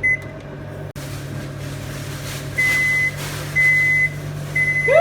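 Microwave oven: a last keypad beep, then the oven humming steadily as it runs. From about halfway come three long beeps about a second apart, the signal that the cooking cycle has finished.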